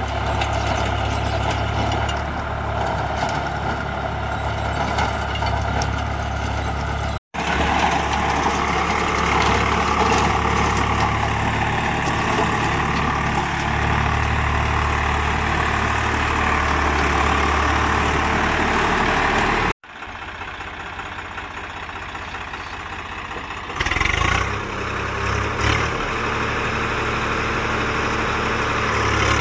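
Swaraj 744 FE tractor's three-cylinder diesel engine running steadily while it drives a rotavator through the soil. The sound cuts out abruptly twice; after the second break it is quieter, with a brief louder surge about 24 seconds in.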